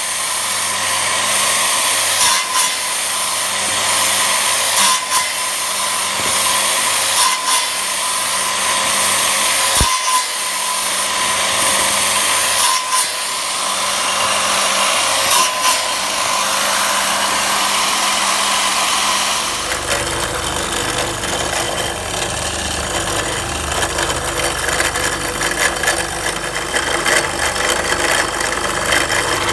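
A circular saw runs steadily, cutting wooden strips, with a sharp knock every two to three seconds. About two-thirds of the way through, the sound changes to a bench drill press running lower and rougher as it bores into a wooden strip.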